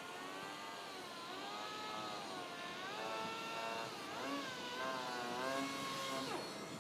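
A power tool's motor running, its pitch rising and falling every second or so as it takes and sheds load, then dropping sharply near the end as it winds down.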